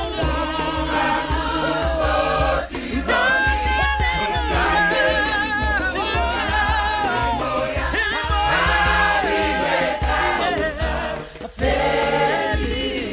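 A choir singing a gospel song in harmony over a repeating low bass line, with a brief break about eleven seconds in.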